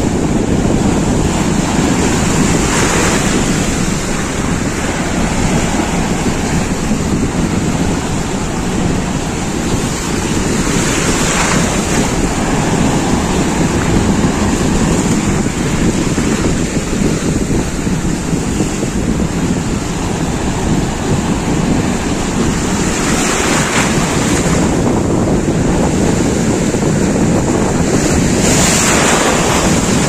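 Sea surf on a rocky shore mixed with wind rushing over the microphone, a steady loud noise that swells briefly about four times.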